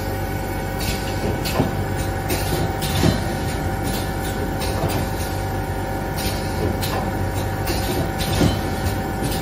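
Automatic premade paper bag flour filling and packing machine running: a steady mechanical hum with fixed tones, broken by frequent short hissing clacks from its moving parts.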